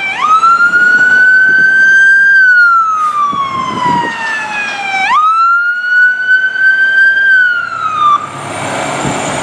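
Siren of a Pierce Velocity aerial ladder fire truck sounding a wail: twice it jumps up quickly, holds high and slowly climbs, then slides down over a few seconds. The siren cuts off about eight seconds in, leaving the passing truck's engine and road noise.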